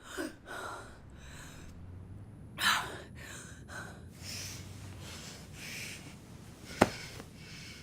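A person breathing heavily and gasping in a series of breaths, the loudest about two and a half seconds in. A sharp click comes near the end.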